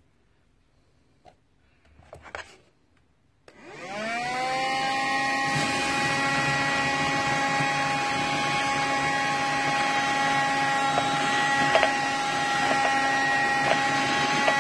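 Rowenta Extenso Cyclonic handheld vacuum cleaner switched on about three and a half seconds in, its motor spinning up quickly and then running with a steady whine over a rushing hiss. A few handling clicks come before it starts.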